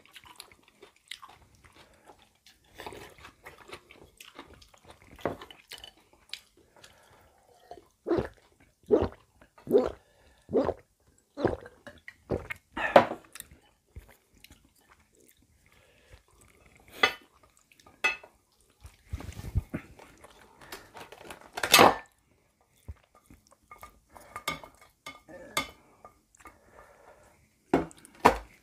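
Two people eating jjapaghetti black-bean noodles: chewing, with scattered sharp clicks and knocks of wooden chopsticks against ceramic bowls and a platter.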